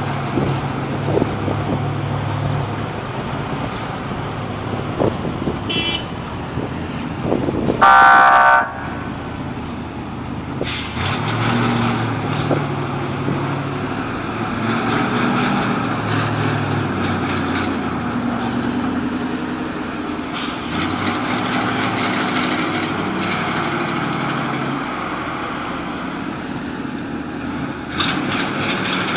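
Fire trucks' engines running as they drive in and manoeuvre, with one loud horn blast of under a second about eight seconds in. A brief high-pitched tone sounds a couple of seconds before the blast.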